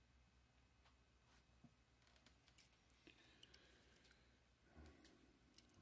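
Near silence: faint room tone with a few scattered faint clicks.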